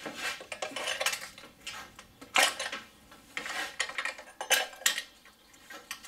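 Irregular light metallic clinks and clatter of a metal puller tool working among the HT leads to pull the plug connectors off a VR6 engine's spark plugs, the sharpest clinks about two and a half and four and a half seconds in.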